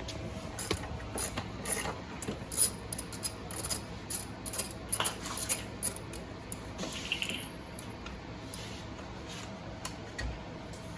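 Scattered light clinks and knocks of metal tools and parts being handled, busiest over the first six seconds and sparser after.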